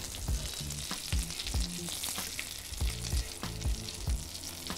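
Breaded chicken schnitzels sizzling in hot fat in a frying pan, with scattered clicks of tongs against the pan as the pieces are lifted out.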